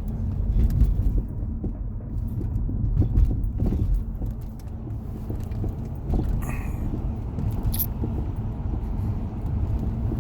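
Car road noise heard from inside the cabin while driving: a steady low rumble with scattered small clicks and rattles.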